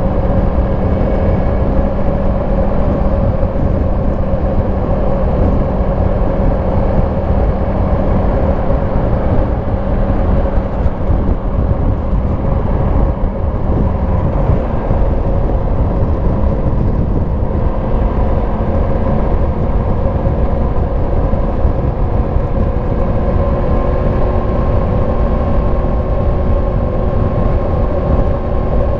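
Yamaha MT-10 SP's crossplane inline-four engine running steadily through its stock exhaust as the motorcycle rides along. The engine note shifts to a different pitch about halfway through.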